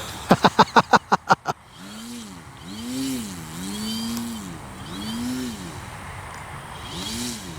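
Electric RC plane's brushless motor and propeller, spinning up and down repeatedly in smooth rising and falling whines, about once a second. Before that, a quick run of about eight even knocks.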